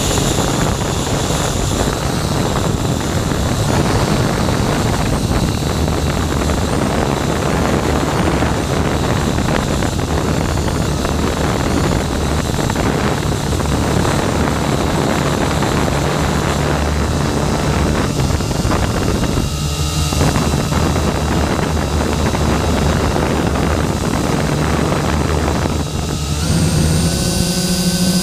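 Syma X8 quadcopter's motors and propellers, powered by an 11.1 V three-cell battery, running hard in flight as heard from the GoPro riding on the drone: a dense buzzing whir that wavers while it climbs. About 26 s in it settles into a steadier, even hum.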